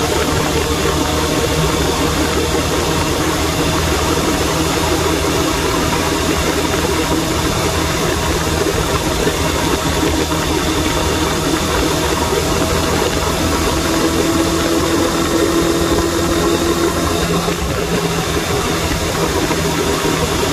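Suzuki Bandit 600 motorcycle's inline-four engine running steadily while riding along, with wind noise rushing over the phone's microphone.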